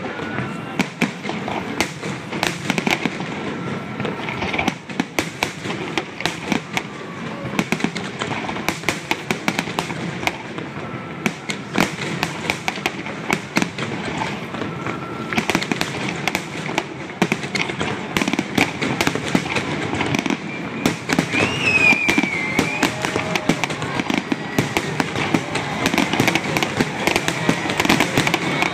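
Aerial fireworks display: a dense, continuous string of shell bursts, bangs and crackles with no pause, building louder toward the end.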